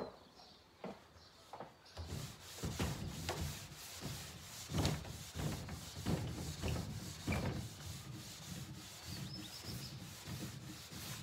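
Steel wool rubbed by hand back and forth over the bare, sanded mahogany top of a cabinet, a scrubbing sound in uneven strokes that starts about two seconds in after a few light knocks. This is the smoothing pass that leaves the sanded wood soft before pore filler goes on.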